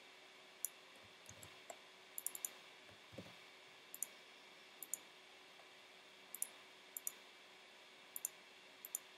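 Quiet clicks of a computer mouse, single clicks and quick double-clicks, about twenty in all, over a faint steady hum. There are two soft low thumps, about one and three seconds in.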